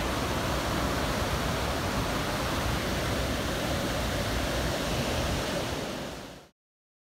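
Ocean surf rushing steadily with waves breaking, mixed with wind rumbling on the microphone; it fades out to silence about six seconds in.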